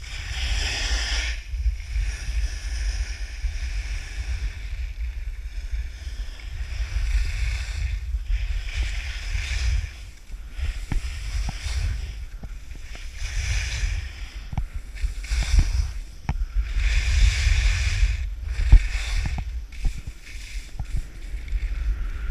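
Wind buffeting a camera microphone while skiing downhill, a constant low rumble, with the hiss of skis scraping over packed snow swelling and fading with each turn and a few light knocks.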